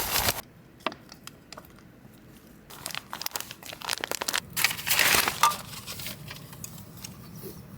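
Plastic packaging being handled and torn open, crinkling in irregular bursts: once right at the start, again about three seconds in, and loudest around five seconds in.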